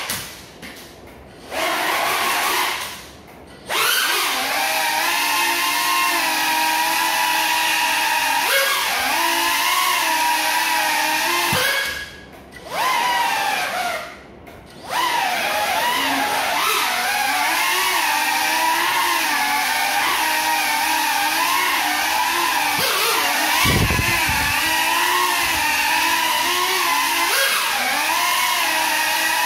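Micro FPV quadcopter's motors and propellers buzzing, the pitch rising and falling with the throttle; the props are damaged. The sound cuts out briefly twice near the start and twice around the middle, and there is a low thump about 24 seconds in.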